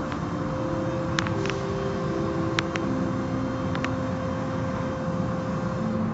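Automatic car wash tunnel machinery running: a steady mechanical hum of the motors turning the rotating cloth brushes, with the wash noise over it and a few short sharp ticks.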